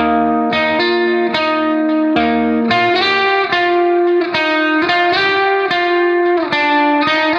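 Background music: a melody of plucked notes at a steady, even level.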